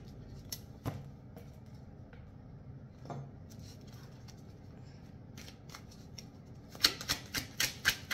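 A deck of tarot cards being shuffled by hand: a few faint card clicks, then a quick run of louder clicks near the end.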